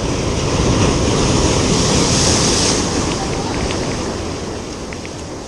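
Surf breaking over a rocky shore: a wave crashes and rushes in, loudest around two seconds in, then slowly dies away.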